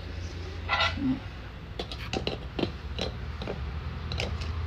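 Several light clicks and taps of a spoon and kitchen containers being handled at a mixing bowl, scattered through the second half, over a low steady hum.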